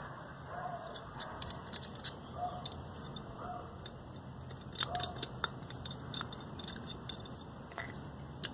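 Light clicks and metal taps from a screwdriver turning the float bowl screws of a Honda Ruckus carburetor and from the small parts being handled, with a cluster of taps about five seconds in. A bird gives five short calls in the background over the first five seconds.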